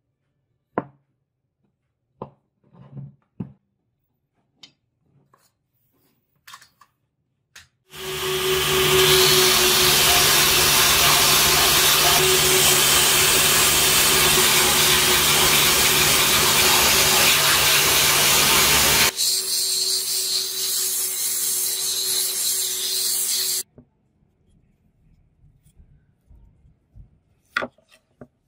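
Belt sander grinding a wooden block pressed against its belt: a loud, steady rasp over a low motor hum, starting about eight seconds in. Some eleven seconds later it thins to a lighter hiss, then cuts off suddenly. Before and after it, a few light knocks of the wood being handled.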